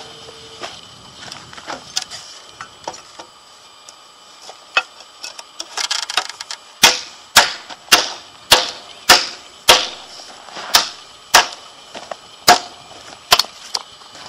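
Light handling clicks, then about a dozen sharp, evenly spaced hammer blows, a little under two a second, knocking a galvanised steel fencing bracket onto a timber post.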